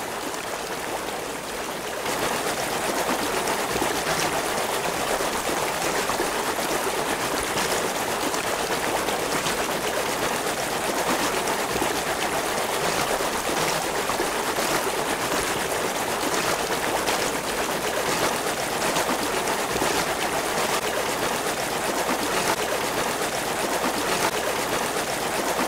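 Small stream of water running, a steady rush that grows louder about two seconds in.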